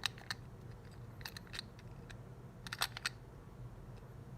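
Small metal parts of a Master Lock 410 LOTO padlock clicking and tapping as a part is fitted into the lock body. The sharp clicks are scattered: one at the start, a pair about a second and a half in, and a cluster near three seconds.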